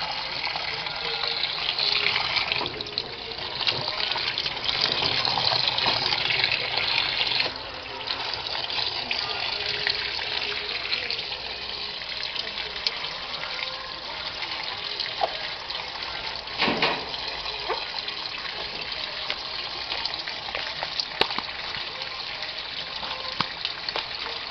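Water gushing into the tub of a Samsung WA89V9 top-load washing machine as it fills at the start of a wash cycle. The flow changes in strength a couple of times early on, and there is a short louder burst about two-thirds of the way through.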